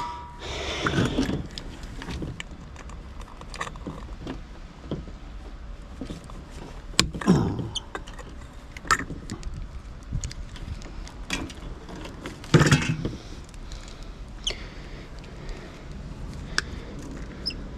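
Scattered metal clinks, knocks and scrapes of hand tools and scrap parts while a stuck fastener is worked loose by hand, with the sharpest knocks about seven and twelve and a half seconds in.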